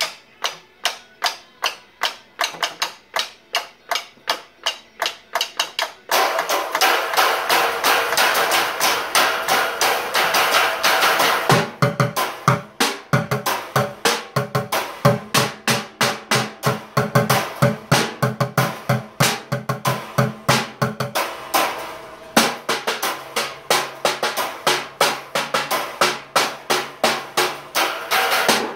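Drumsticks striking a drum in a steady beat, about two to three hits a second; about six seconds in, a song starts playing and the drumming carries on along with it.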